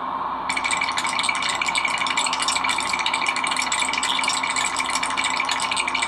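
Cartoon teeth-chattering sound effect of a character shivering with cold: a dense, rapid clatter that starts about half a second in, over a steady hiss.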